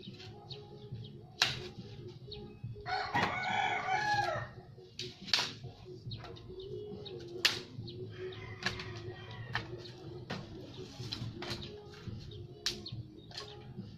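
A rooster crows once, about three seconds in. Around it come sharp, irregular cracks and snaps of dry branches being broken by hand for firewood.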